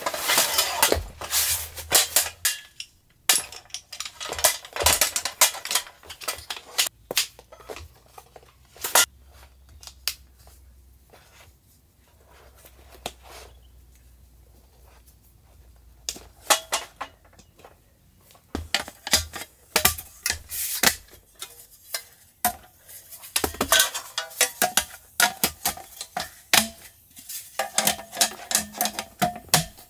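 Small folding camp table being unpacked and put together: its metal leg frame clicking and knocking as it is opened out, and slatted metal tabletop panels clattering into place. The clatter eases off for a few seconds in the middle.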